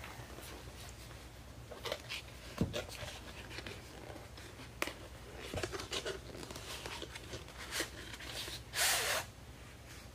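Tabletop handling noises: scattered light taps and rustles as sketchbook paper and a cardboard box of soft pastels are moved about, with one longer sliding rustle about nine seconds in.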